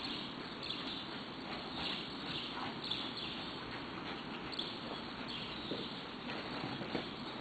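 Horse's hoofbeats on soft ground, coming irregularly over a steady outdoor background noise.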